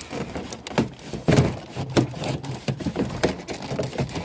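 Plastic interior door panel of a Chevrolet Silverado knocking and scraping against the door in a run of irregular clicks and knocks as its top lip is worked into the groove on the door.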